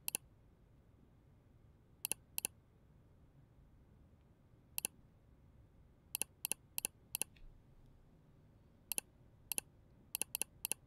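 Computer mouse clicking, about fourteen sharp clicks spaced irregularly, some single and some in quick runs of three or four.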